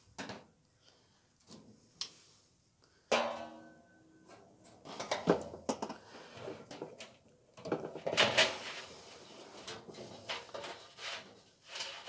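Metal knocks, clanks and rattles from hands and tools working inside a clothes dryer's sheet-metal cabinet to get the idler pulley off. One knock about three seconds in rings briefly, and a busier run of clattering comes around eight seconds.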